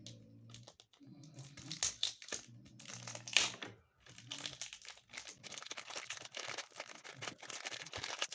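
Thin plastic wrapping crinkling and tearing in irregular bursts as a speed cube is pulled out of it.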